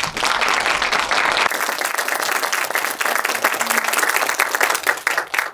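Audience applauding: many hands clapping in a dense, steady patter that stops near the end.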